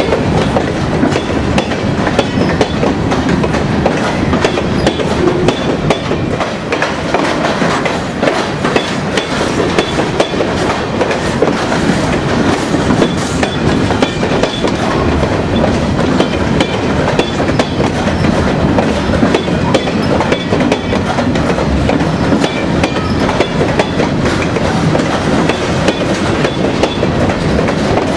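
Freight train of covered hopper cars rolling past close by, the wheels clicking over rail joints in a steady clatter.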